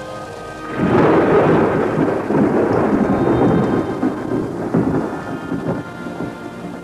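A loud clap of thunder about a second in, rumbling on for a few seconds and then fading, over steady rain and soft background music.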